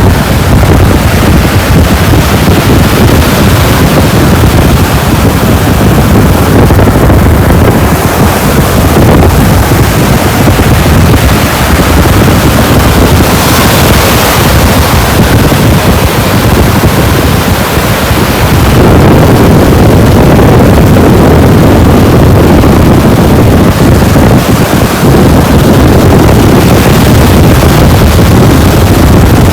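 Loud, steady rushing of wind and water, with wind buffeting the microphone; it grows a little louder about two-thirds of the way through.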